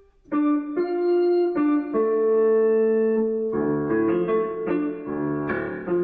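Solo piano improvisation. Chords come in a moment after the start and are struck about every half second, then from about three and a half seconds in the playing turns faster and fuller, with lower bass notes added.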